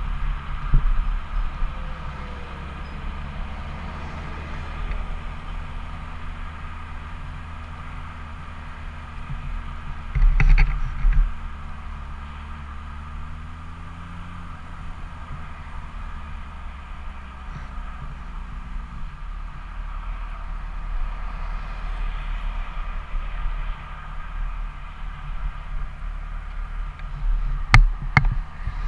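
Yamaha FZ6's inline-four engine running steadily at highway speed, with wind rushing over the camera's microphone. There is a loud burst of noise about ten seconds in and a few sharp clicks near the end.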